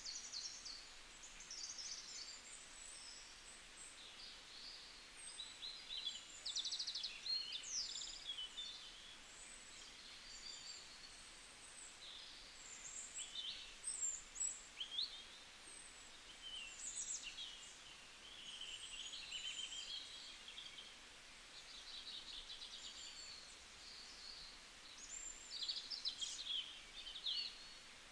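Birds calling: many short, high chirps, rapid trills and brief whistles scattered throughout, over a faint steady background hiss.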